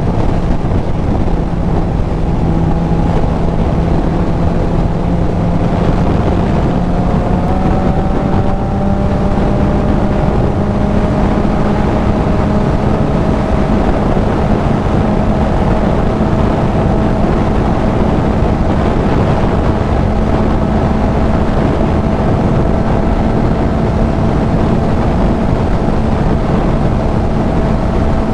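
Kawasaki Z900 inline-four through a CS Racing full exhaust, riding along under steady throttle, its engine note climbing gradually with no gear change. Heavy wind rush on the helmet-mounted microphone runs underneath.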